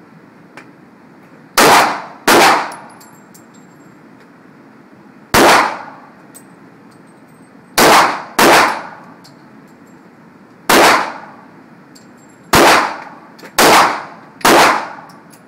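Nine gunshots at an uneven pace, several fired as quick pairs about half a second apart, each with a short ringing tail.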